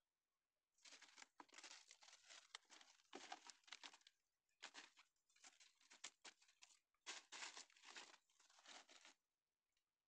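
Dry bamboo leaf litter rustling and crackling in three stretches of quick bursts as hands work in it on the ground, stopping near the end.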